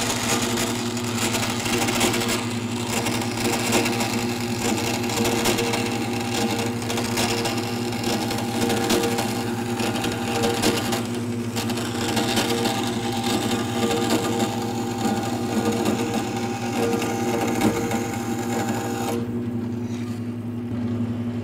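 JET vertical bandsaw cutting aluminum plate, its blade speed turned up for aluminum: a steady motor hum with a harsh, even cutting noise over it. Near the end the cutting noise stops as the blade clears the piece, and the saw runs on freely.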